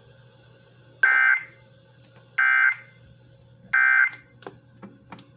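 Emergency Alert System end-of-message signal: three short, identical bursts of warbling digital data tones, about 1.4 seconds apart, marking the end of the flash flood warning broadcast. A few faint clicks follow.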